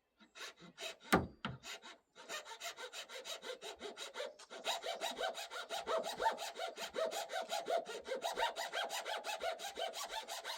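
A few knocks as a part of a Holzfforma G260 chainsaw is set firm, then about two seconds in a hand file starts rasping back and forth across it in quick, even strokes, about five a second, with a metallic ring. The part is being filed down because it sits up proud and will not seat flat.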